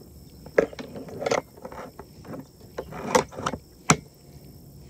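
Irregular knocks, clatters and rattles from handling on board a plastic kayak, the camera sitting on the hull. The sharpest knocks come about half a second in and again about three and four seconds in.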